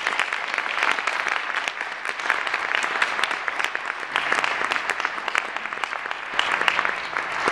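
Audience applauding: dense, steady clapping at the end of a barbershop quartet's song.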